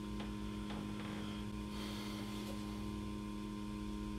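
Steady electrical hum with no break, and three faint clicks in about the first second.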